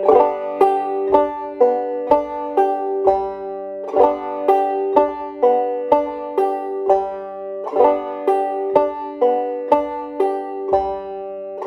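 Clawhammer banjo played in the drop-thumb pattern: the finger strikes the first string, the thumb drops to the second string, the first string again, then the thumb back to the fifth string, repeated over and over in an even, steady rhythm.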